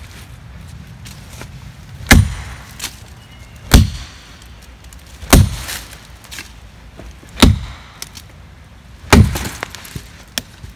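Axe chopping into a standing hardwood tree trunk: five strokes, roughly one every one and a half to two seconds, each a sharp knock with a brief ring-out.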